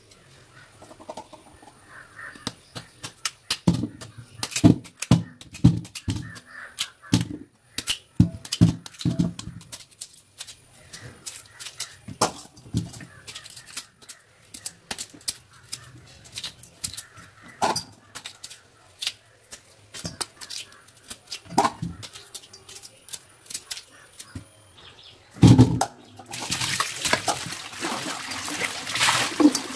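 Peeled cassava (tapioca) pieces knocking and clattering in a stainless steel bowl in a sink, a long irregular string of sharp knocks. Near the end a tap opens and water runs steadily into the bowl as the pieces are rinsed by hand.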